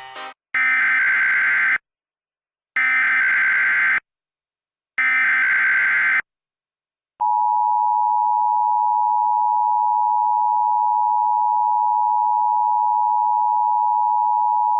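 Emergency Alert System tones. First come three identical bursts of SAME header data, each a harsh warbling screech about a second long. Then, about seven seconds in, the EAS two-tone attention signal (853 and 960 Hz sounded together) starts as a steady shrill tone and holds.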